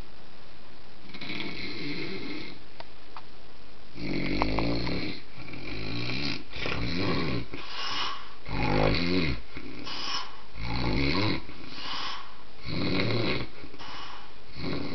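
Dog snoring, a run of short raspy snores about once a second, with a first fainter snore about a second in.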